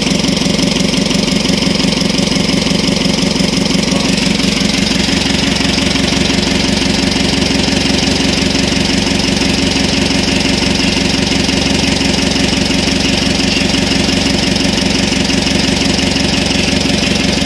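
Isuzu 4HL1 four-cylinder diesel engine idling steadily with its rebuilt injector nozzles fitted, idle speed raised and timing set. It runs evenly, with no stalling or hunting, which marks the hard-starting injector fault as cured.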